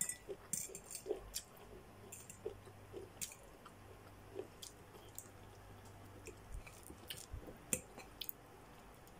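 Person quietly chewing a mouthful of noodles, with soft wet mouth sounds and scattered light clicks.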